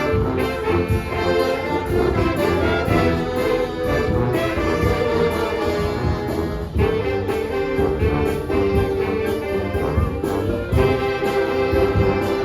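Filipino brass band (banda) playing a medley of Manila sound pop songs, with brass carrying held notes over a steady beat.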